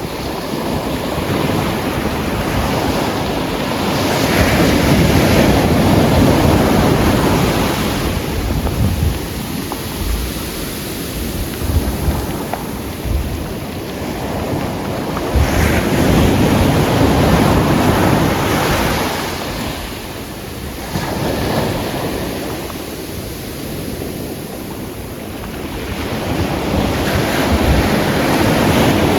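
Atlantic surf breaking on a black volcanic sand and pebble beach, swelling and falling back in three waves about ten seconds apart.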